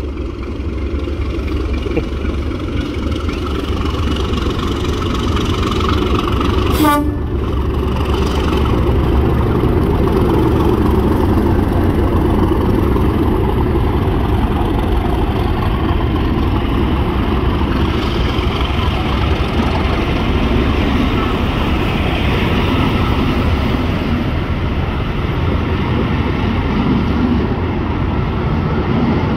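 Class 37 diesel locomotive with an English Electric V12 engine passing through a station at speed, its engine sound building as it approaches. Its train of coaches then rolls past with a steady rumble of wheels on the rails. There is a brief sharp click about seven seconds in.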